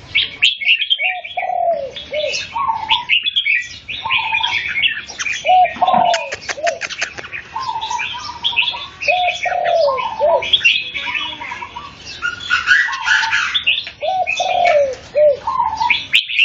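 Red-whiskered bulbuls singing, several birds at once, with busy chirping and whistled phrases. Lower curved phrases come back every few seconds under them.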